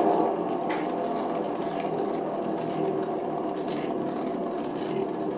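Motorized spinner turning a freshly poured acrylic painting, running with a steady whir to fling the paint out toward the edges.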